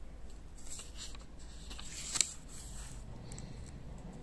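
Paper rustling as a page of a small pocket notebook is turned and handled, with one sharp click about two seconds in.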